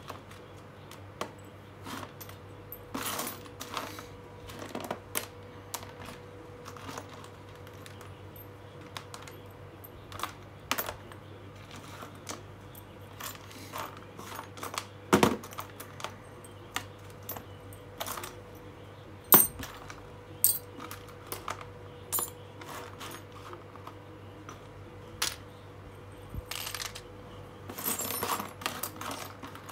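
Old rusty screws and small metal hardware clinking and rattling in a plastic tub as a hand rummages through them and picks pieces out: irregular light clicks, with a few louder rattles, the busiest near the end.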